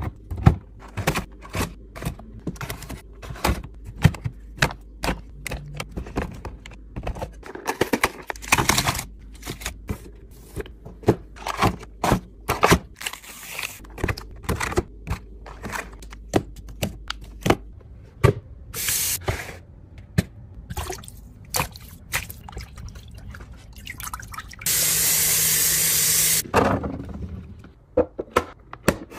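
A string of light clicks, taps and plastic knocks as bottles, snack packs and clear acrylic containers are set down and slid into fridge bins. About 25 seconds in, water runs for about two seconds, the loudest sound.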